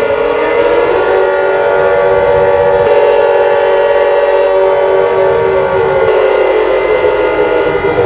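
Emergency alert alarm sounding loudly as a siren-like drone of several held tones layered together, one sliding slowly up in pitch about a second in and drifting down again near the end.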